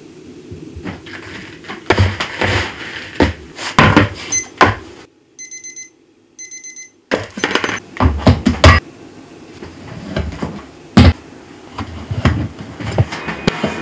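Crumbly ramen noodle dough rustling and tapping as it is tossed by hand in a plastic bowl, then a digital kitchen timer beeping in two short bursts as it is set for the dough's rest. After that come knocks and thuds of the dough slab being handled on a wooden board, with a sharp knock of a cleaver on the board near the end.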